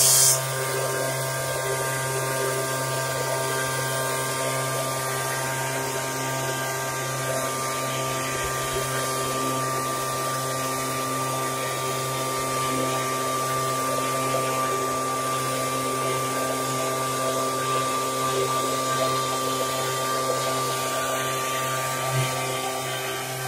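Backpack power sprayer (Bolo pump) running steadily at one even pitch while it sprays liquid onto crops.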